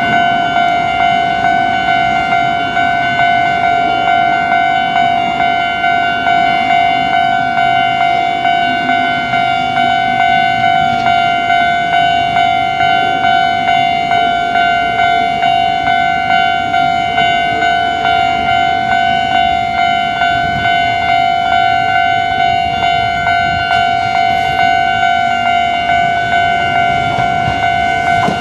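Electronic level-crossing warning bell ringing at a Japanese railway crossing: a loud, clanging tone repeated evenly about twice a second, signalling that a train is approaching.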